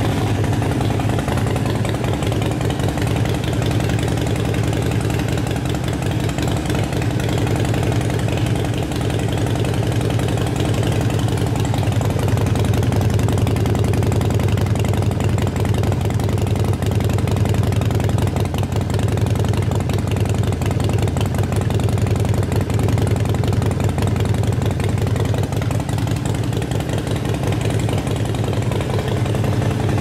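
Harley-Davidson Sportster Roadster's air-cooled V-twin idling steadily through Vance and Hines shorty pipes with baffles.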